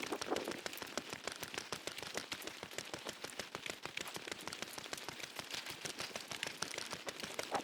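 Rain pattering: a dense, irregular run of small drop impacts over a steady hiss.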